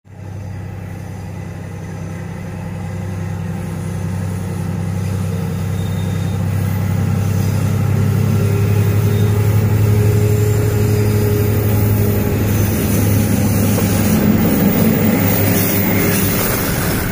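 D19E diesel-electric locomotive engine working hard as it hauls a freight train uphill. A steady deep drone grows steadily louder as the locomotive approaches and passes close by.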